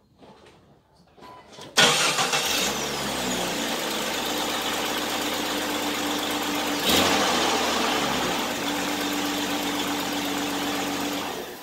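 1999 Jeep Cherokee XJ engine starting with the serpentine belt removed, catching about two seconds in and then idling steadily. There is a brief rise about seven seconds in, and it shuts off at the end. With only the crankshaft pulley turning, the rattle is gone, which points to a loose accessory pulley, suspected to be the water pump pulley.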